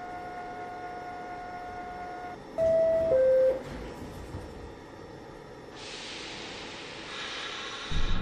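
NYC subway car's two-tone door-closing chime, a loud falling 'ding-dong' about two and a half seconds in, after a steady tone; a hiss follows from about six seconds, and the train begins to rumble off near the end.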